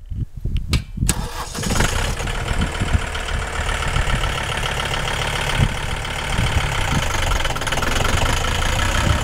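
John Deere 5325 utility tractor's diesel engine running as the tractor drives toward and past. The sound turns loud and dense about a second in and then holds steady.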